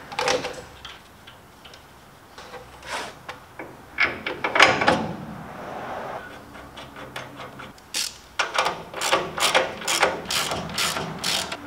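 Steel suspension parts clinking and knocking as a steering knuckle is fitted by hand, then a ratchet wrench clicking in quick strokes near the end as a nut is run down.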